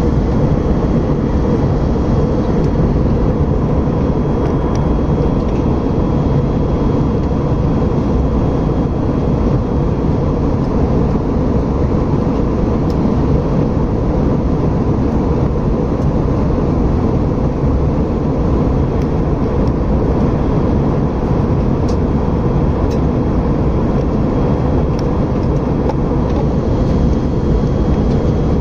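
Steady cabin noise of an airliner with its jet engines running: an even, unbroken rush that is heaviest in the low end and carries a faint steady whine.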